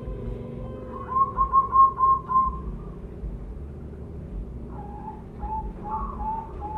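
Spotted dove calling: a quick run of about six short, clear notes about a second in, then a second, lower run of short notes near the end.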